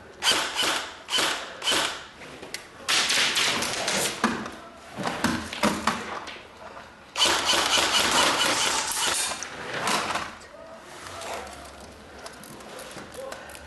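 Airsoft electric guns firing in a plywood-walled room: four short bursts in the first two seconds, then two longer stretches of rapid fire, dying down about ten seconds in.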